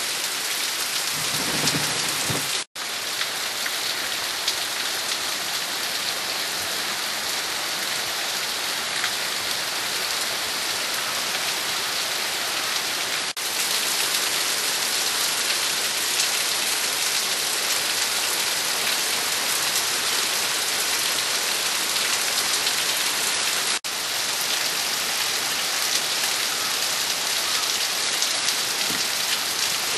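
Heavy rain pouring down steadily, a dense even hiss, broken by three momentary dropouts where the recording is cut.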